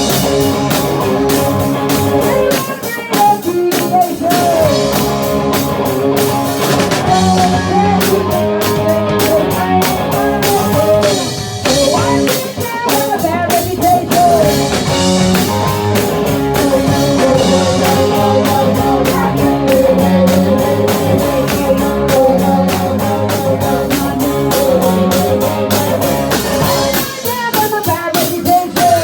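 Live rock band playing with electric guitar and drum kit, a steady beat throughout.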